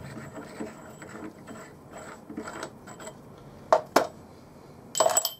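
Steel lathe tooling being handled on the cross slide: a threaded clamp stud is drawn out of its block with light scraping and rattling. Two sharp metallic clicks come about four seconds in, then a short clatter of metal near the end.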